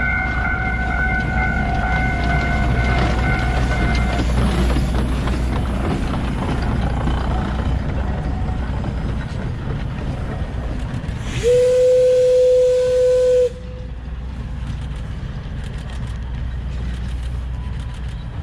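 Shay geared steam locomotive SL-31 running with steam hiss and rumble, then one steady steam whistle blast about two seconds long, a little past the middle; the whistle is the loudest sound. A held high tone ends about four seconds in.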